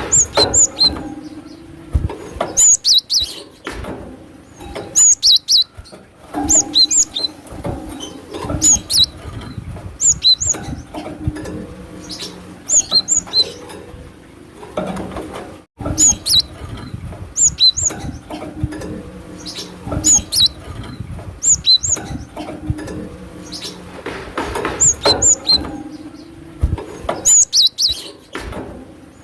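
Cinereous tit (glatik batu) calling: short, high chirping phrases repeated in bouts about every two seconds.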